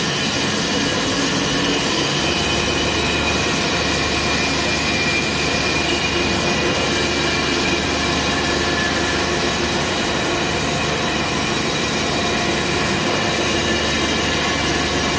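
Dual planetary mixer running: a steady mechanical noise with a few steady high-pitched whining tones over it.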